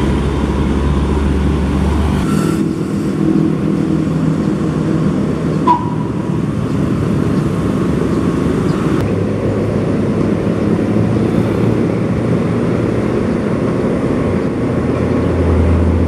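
Motor vehicle engines running, a steady low drone whose pitch shifts a couple of times.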